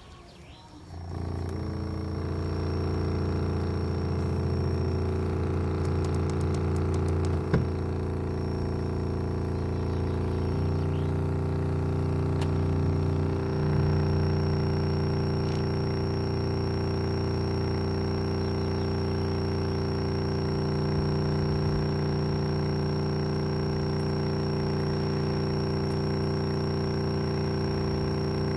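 Woofer of an opened JBL Xtreme 2 portable Bluetooth speaker, lifted out of its housing, playing a loud steady low bass test tone that drones with many higher tones stacked over it. The tone starts about a second in and shifts to a different pitch about ten seconds in.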